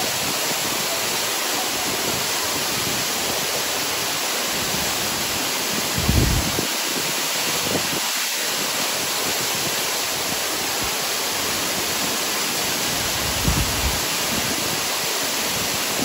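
A large waterfall's falling water, a steady, dense rush of noise. Two brief low thumps stand out over it, about six seconds in and again about thirteen seconds in.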